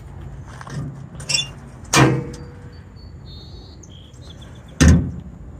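Two loud metal clunks about three seconds apart, with lighter clicks just before the first: a storage compartment door and latch on an antique International Harvester R190 fire truck being worked open. Faint bird chirps in the background.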